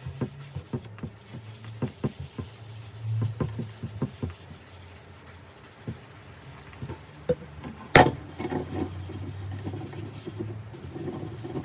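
A sponge rubbing wood stain over a wooden dresser door, a soft scuffing with scattered light knocks and one sharp click about eight seconds in.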